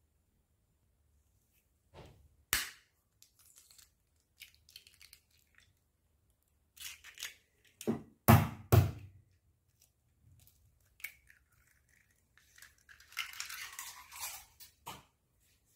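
Two raw eggs cracked on the edge of a ceramic bowl and broken open into it: short sharp taps and crunching of eggshell, with the loudest knocks about eight seconds in and a longer crackle of shell near the end.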